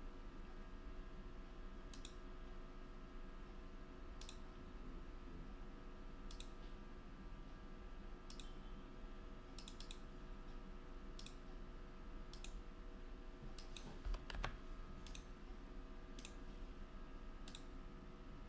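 Faint computer mouse clicks, one every second or two, with a louder quick run of clicks about fourteen seconds in, over a steady electrical hum.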